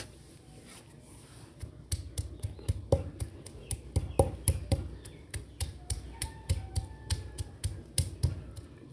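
Onion slices and garlic cloves being pounded on a shil-pata, a flat grinding stone, with its hand-held stone: a run of sharp stone-on-stone knocks, about three or four a second, starting about two seconds in and stopping shortly before the end.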